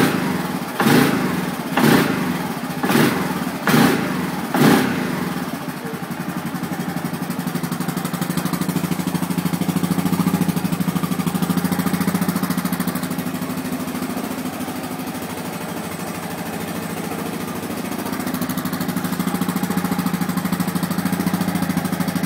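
Stock exhaust of a 2009 Yamaha Grizzly 700 ATV: its single-cylinder four-stroke engine is blipped about once a second for the first five seconds, then settles to a steady idle.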